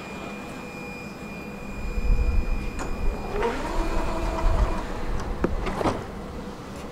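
Electric tram pulling away from the stop: a low rumble of wheels on rails rises about two seconds in, with the traction motors' whine gliding in pitch, then dies down near six seconds after a couple of sharp clicks. A steady high whine is heard before the rumble starts.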